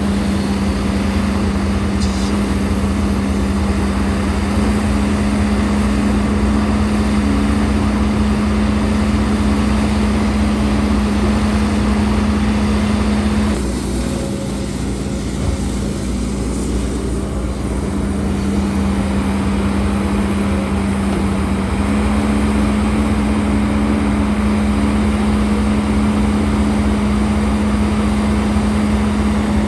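Diesel engine of a HIDROMEK HMK230LC excavator running steadily at working revs, a constant heavy hum. It eases off a little about halfway through and picks back up later.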